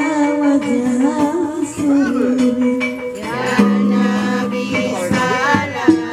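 A group of women singing a slow, drawn-out melody with ornamented glides, led by one voice into a handheld microphone.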